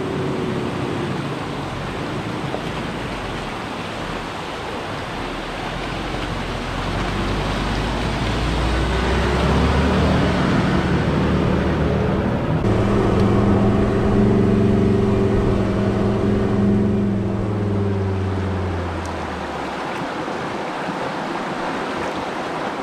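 Creek water rushing over rocks at a 4WD crossing, with a four-wheel-drive's engine running steadily from about a third of the way in, dying away near the end.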